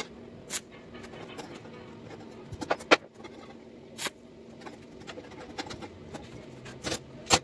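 Stick-welding arc from an inverter welder, struck against steel bars in a series of short, sharp crackles, a few seconds apart: tack welds on a steel grill frame. A faint steady hum runs underneath.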